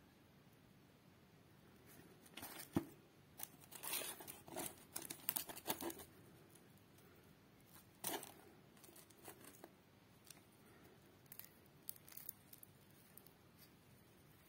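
Hands tearing apart chicken and bread pieces and rustling the paper liner of a takeaway food box. A cluster of short tearing and crinkling bursts starts about two seconds in and lasts a few seconds, another comes about eight seconds in, then faint scattered crackles follow.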